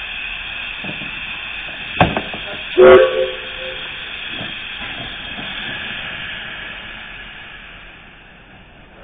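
Saddle-tank steam locomotive standing in steam, a steady hiss of steam blowing from its cylinder drain cocks that fades near the end. About two seconds in there is a sharp knock, and just after it a short, loud toot on the locomotive's steam whistle.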